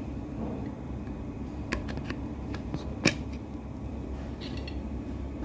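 Light metallic clicks of a screwdriver working the hook-pinion nuts inside a zigzag sewing machine's hook housing as a nut is tightened. Five or six clicks fall between about two and three seconds in, the sharpest near three seconds, over a steady low hum.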